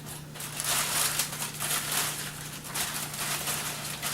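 Sandwich wrapper rustling and crinkling in uneven bursts as the sandwich is handled, over a steady low electrical hum.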